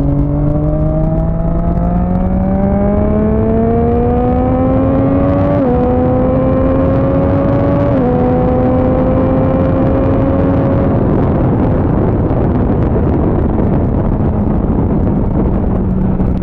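Motorcycle engine accelerating through the gears, its pitch climbing with two upshifts, then holding steady at cruising speed. Wind rush on the helmet camera grows louder as speed builds.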